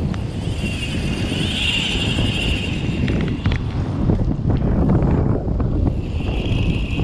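Strong wind buffeting the microphone on an open surf beach, a steady heavy rumble. A high-pitched hiss rises over it twice, for a couple of seconds about a second in and again near the end.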